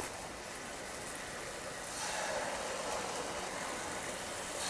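Mangalore bonda batter deep-frying in hot oil in a kadai: a steady sizzle that grows a little louder about two seconds in, as more balls of batter are dropped into the oil by hand.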